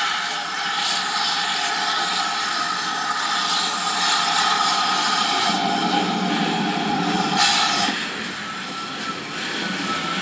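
Steam locomotive No. 4144, a 5101 class 2-6-2 large prairie tank engine, running slowly toward the listener with a steady hiss and the sound of its working. A steady high note cuts off suddenly about eight seconds in, just after a short loud crack.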